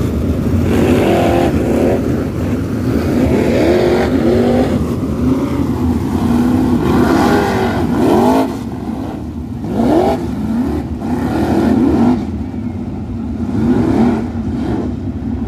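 Several winged dirt sprint cars' V8 engines running at low speed, with repeated short throttle blips that rise and fall in pitch every few seconds over a steady rumble.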